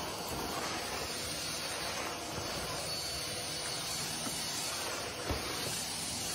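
Stick vacuum cleaner running with a steady hiss, with a light knock about five seconds in.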